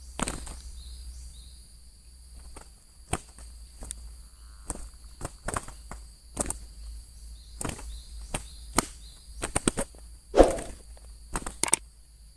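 Irregular sharp clicks and knocks, with a heavier thud about ten seconds in, over a faint steady high drone of insects.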